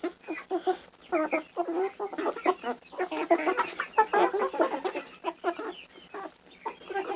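A flock of chickens clucking, many short overlapping calls from several birds at once.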